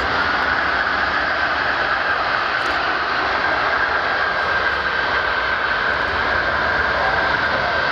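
Boeing C-17A Globemaster III's four Pratt & Whitney F117 turbofan engines running steadily as the transport taxies, a loud rush with a steady high whine over it.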